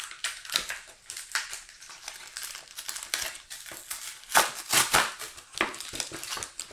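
Plastic blister packaging of a Pokémon card three-pack being pried and torn open by hand: irregular crinkling and crackling, loudest about four and a half seconds in.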